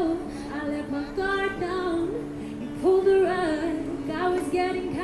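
A woman singing a slow melody with long held notes, accompanying herself on acoustic guitar, through a small busking amplifier.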